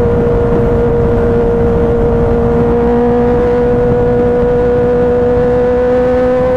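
Kawasaki ZX-10R inline-four engine running steadily at high revs while the motorcycle is ridden, its pitch rising slightly, over wind and road noise.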